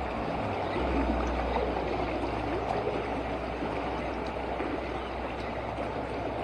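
Steady rush of flowing water from a swollen, flooded stream.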